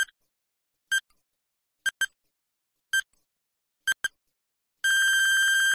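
Quiz countdown-timer sound effect: a short electronic beep about once a second, twice as a quick double beep, then a longer steady beep near the end as the count runs out.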